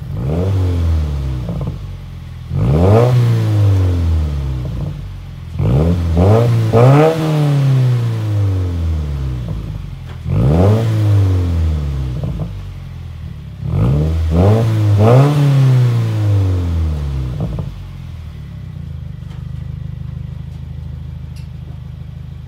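2018 Subaru WRX turbocharged 2.0-litre flat-four running through a Tomei Expreme Ti titanium exhaust. It is revved in a series of quick blips, each rising sharply and falling back slowly, then settles to a steady idle for the last few seconds.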